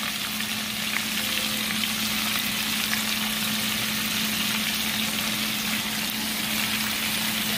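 Hot oil deep-frying breaded shrimp in a pot: a steady bubbling sizzle with small scattered crackles as more shrimp are dropped in. A steady low hum runs underneath.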